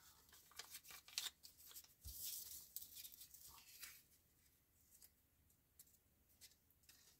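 Faint rustling and light handling of paper dollar bills being picked up and folded, in short scattered bursts with a slightly louder rustle about two seconds in.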